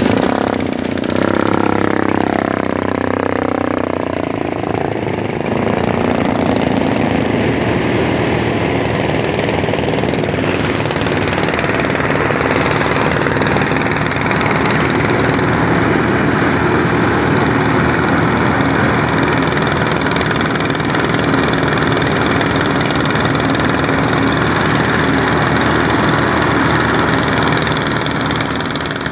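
Small engine of a field threshing machine running steadily, with a changing engine pitch in the first few seconds. From about ten seconds in, a louder, steady rushing noise joins it.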